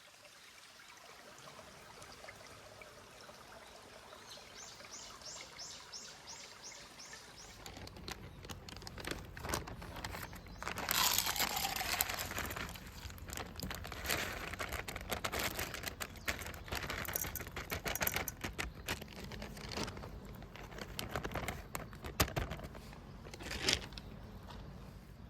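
A bird gives a quick run of about eight high notes; then, from about a third of the way in, loud rustling and crackling noises start up in irregular bursts.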